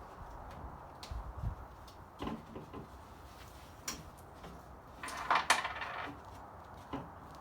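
Scattered knocks and clicks from a wooden stereo console cabinet being taken apart by hand, with a louder scraping rattle about five seconds in.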